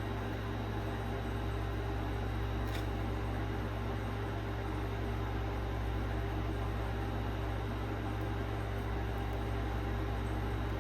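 Steady mechanical whirring hum with an even hiss, like a fan motor running, and one faint tick about three seconds in.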